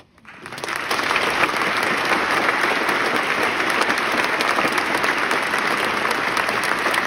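Large audience applauding, the clapping swelling within the first second and then holding steady and dense.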